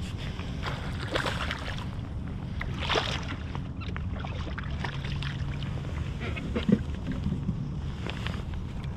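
Steady low rumble of water and light wind around a fishing kayak, with a few brief thumps and clicks; the loudest thump comes about two-thirds of the way through.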